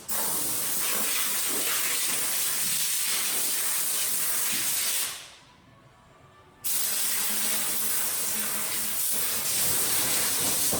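Steady hiss that fades away about five seconds in and cuts back in abruptly a second and a half later.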